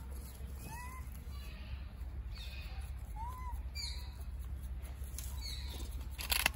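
A few short, faint, arched squeaking calls from small animals over a steady low rumble, with a brief sharp noise near the end.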